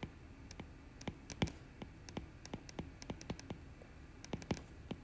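A stylus tip tapping on a tablet's glass screen while handwriting: many light, irregular clicks.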